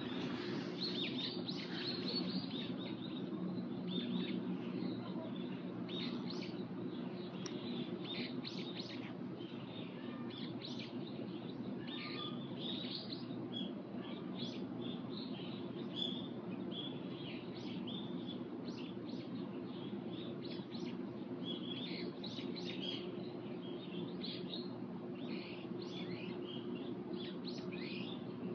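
Small birds chirping: many short, high calls, often overlapping, over a steady low hum.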